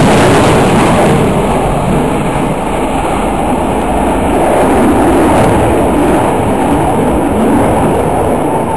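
F-16 fighter jet's engine roar during a low fly-by: a loud, steady rushing rumble that swells and eases slightly over several seconds.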